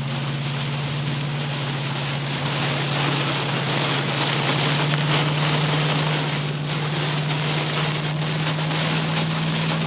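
Steady road noise from a car being driven: a constant low hum under an even hiss, with no clear breaks or impacts.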